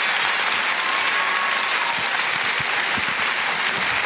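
Theatre audience applauding steadily at the end of a song.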